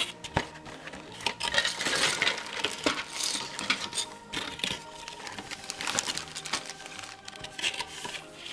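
Cardboard toy box being opened and handled: flaps and inner cardboard scraping and rustling, with plastic bags of building-set pieces crinkling and the hard plastic parts inside clicking and clinking in quick, irregular bursts.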